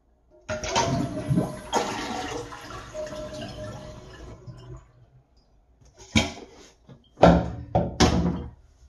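Toilet with a Kohler canister flush valve being flushed: water rushes out of the tank for about four seconds and then stops. Several sharp knocks follow near the end.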